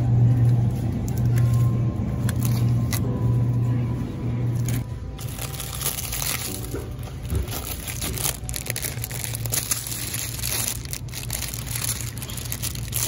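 A low hum for about the first five seconds, then plastic food packaging crinkling and rustling as grocery items are picked up and handled in a shopping cart.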